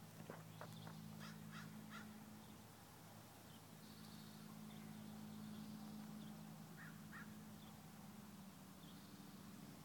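Near silence: faint outdoor ambience with a low steady hum and a few faint distant bird calls, two of them close together about seven seconds in.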